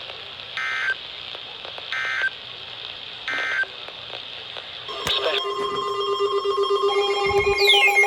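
Emergency Alert System end-of-message over weather radio: three short bursts of buzzing digital data tones, about a second and a half apart, over a steady radio hiss. About five seconds in there is a click, then a chord of steady electronic tones starts, with falling sweeps joining near the end.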